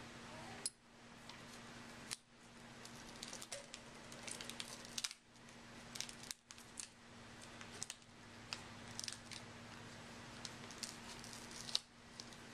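Light, scattered clicks, taps and crinkles of hands handling a laptop LCD panel and working tape and its cable connector loose, over a faint steady hum.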